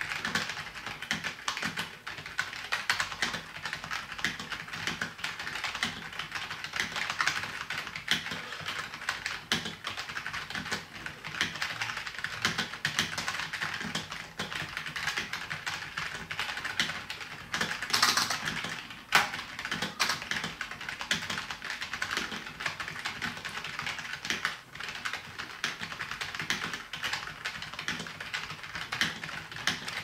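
Fast, continuous typing on an ABKO Hackers K250K membrane keyboard: a dense run of key clicks, with a louder flurry a little past halfway.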